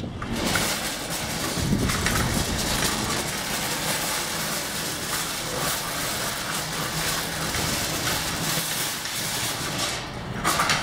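A metal shopping cart rattling steadily as it is pushed over pavement, with wind noise on the microphone.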